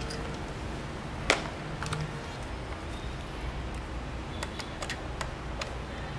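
Small parts being handled on a workbench: scattered light clicks and taps, one sharper click about a second in and a run of small ticks near the end, over a low steady hum.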